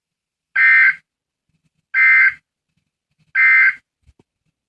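Emergency Alert System SAME end-of-message data bursts: three identical half-second bursts of two-tone digital screeching, about 1.4 s apart, signalling the end of the alert.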